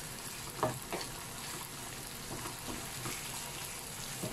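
Chicken pieces sizzling in a frying pan with onions and tomatoes as a wooden spatula stirs them, a steady hiss with a couple of brief soft knocks a little under a second in.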